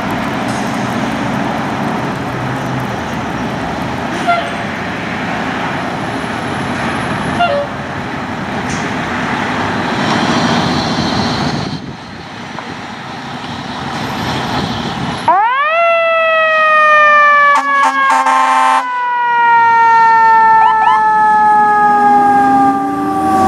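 A fire engine's diesel runs steadily for the first half. About two-thirds of the way in, its siren winds up very fast and then slowly sinks in pitch over several seconds, broken about a second later by a short horn blast. A low tone begins to rise again near the end.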